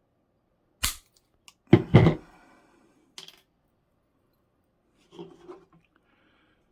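Wire clippers snipping the end of a lure's wire with a sharp snap, followed by two louder knocks close together about a second later and a smaller click after that.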